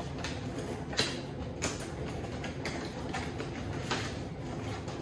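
Light knocks and clicks of objects being handled, about a second in, again shortly after and once more near the end, over a steady low hum.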